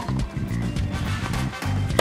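Background music with a steady bass beat. A single tennis ball struck by a racket sounds sharply right at the end.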